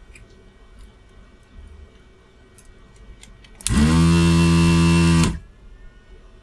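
Desoldering gun's vacuum pump running, a loud buzzing hum that spins up quickly, holds for about a second and a half and cuts off, sucking molten solder from a relay pin joint on a circuit board. A few faint ticks come before it.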